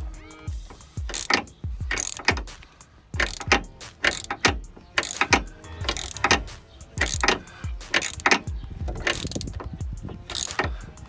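Hand ratchet clicking in repeated strokes, about one burst of clicks a second, as it tightens the hub bearing's mounting bolts and draws the new front wheel bearing into the steering knuckle.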